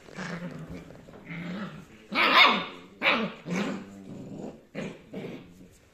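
Seven-and-a-half-week-old rough collie puppies growling and barking as they play-fight: a string of short growls and yaps, the loudest about two seconds in.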